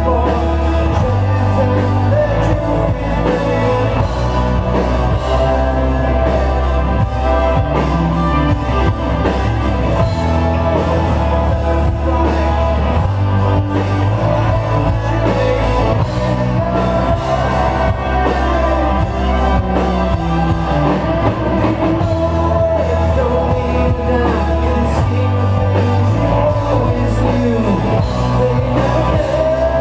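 A live progressive rock band playing: bass guitar, drum kit, keyboards and electric guitar, with sustained bass notes changing every few seconds under a busy melody.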